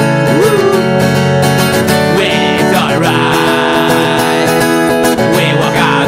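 Acoustic guitar strummed steadily in an acoustic punk song.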